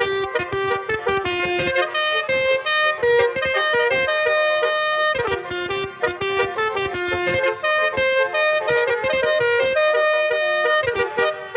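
Telolet musical bus horn playing a fast tune, its notes jumping quickly from one pitch to the next with sharp starts.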